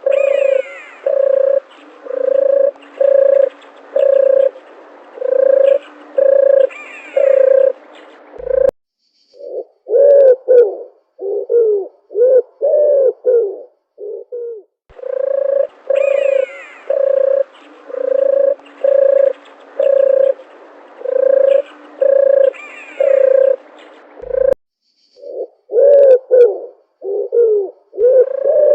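Dove cooing: a run of short, evenly spaced coos, then a stretch of coos that fall in pitch. The sequence cuts off abruptly and starts over about halfway through. Faint higher bird calls sound behind it.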